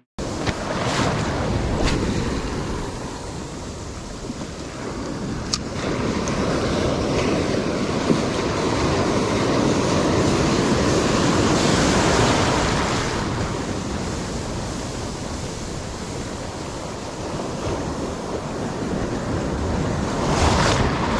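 Ocean surf breaking and washing in the shallows, with wind buffeting the microphone. The wash swells loudest about twelve seconds in and again near the end.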